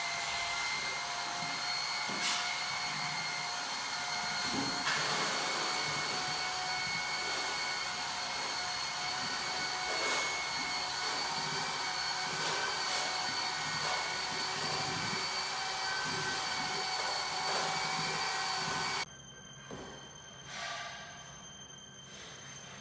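A motor-driven machine running steadily with a whine and rushing air, a few light clicks over it; about 19 seconds in it cuts off suddenly to a much quieter room.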